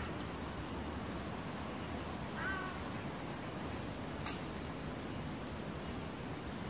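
Steady low rumble of street ambience, with one short animal call about two and a half seconds in and a single sharp click a little past four seconds.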